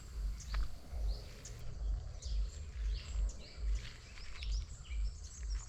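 Forest birds calling with many short, high chirps and whistles, over a low thud about every 0.7 s at walking pace, like footsteps on a trail.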